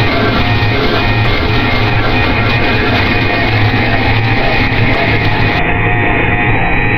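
Noise music: a loud, dense, unbroken wall of distorted sound. About five and a half seconds in, its top end is suddenly cut away, leaving a duller sound.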